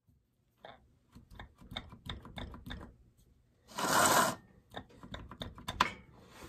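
Hands working the chain and bar of a Homelite Super XL-130 chainsaw: a run of irregular light clicks and knocks, one short loud scrape about four seconds in, then more clicks.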